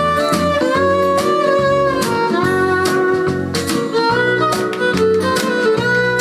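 Recorded song played through a home-built valve amplifier, in an instrumental passage: a held, wavering melody line over a walking bass and a steady beat.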